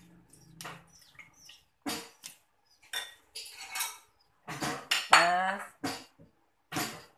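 A metal spoon clinking and scraping against bowls and a plastic sieve in short, irregular clatters while coconut milk is squeezed and strained. About five seconds in there is a loud call that falls in pitch.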